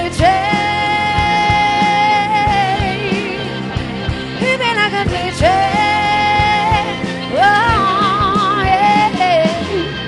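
A live rock band playing: a woman sings long held notes, the last one wavering, over electric guitar, electric bass and a drum kit.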